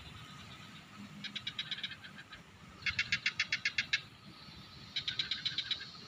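A bird calling in three rapid trills, each about a second long, of roughly nine short, sharp notes a second.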